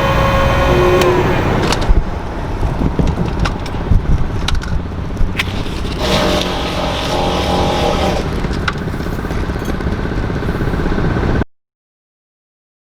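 Heat gun's blower motor running with a steady whine, then switched off about a second in, its pitch falling as it spins down. Scattered handling clicks and knocks follow, and the sound cuts off abruptly near the end.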